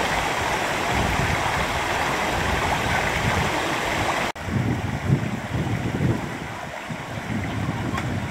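Floodwater running across a road, a steady rushing hiss. About four seconds in it breaks off abruptly and gives way to a lower, uneven rumble of moving water.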